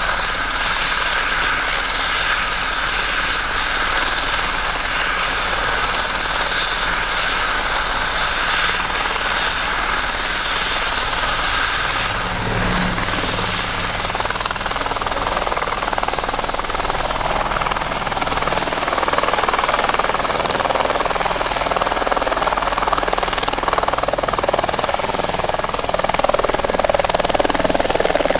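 Single-engine turbine helicopter running on the ground with its main rotor turning: a steady high turbine whine over the rotor noise. From about the middle the whine climbs a little in pitch and the rotor noise grows louder as power comes up for liftoff.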